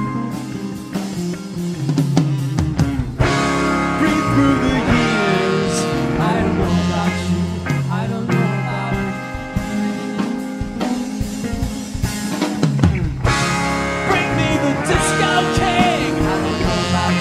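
Live rock band playing an instrumental passage: drum kit, bass, electric guitars, keyboard and saxophone, with sustained chords and bending lead lines.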